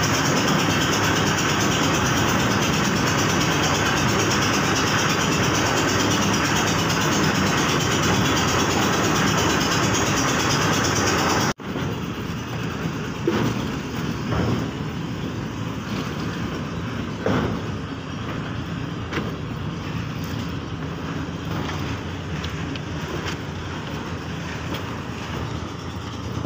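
Portable concrete mixer running, its engine and turning drum making a steady mechanical din. About halfway through the sound cuts abruptly to a quieter steady running with a few scattered knocks.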